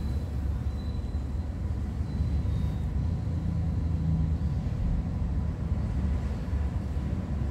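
Domestic cat purring steadily, a continuous low rumble, while having its chin scratched.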